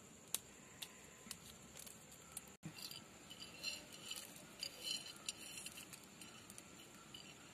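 Faint small clicks and clinks as black peppercorns are picked off a ceramic plate and dropped onto a stone grinding slab, bunched between about three and six seconds in. There is a single sharper click just after the start.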